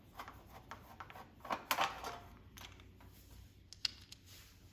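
Scattered clicks, scrapes and light metal rattles of a screwdriver working the handle screws out of a metal space heater's case, busiest about one and a half seconds in, with a sharp click near the end.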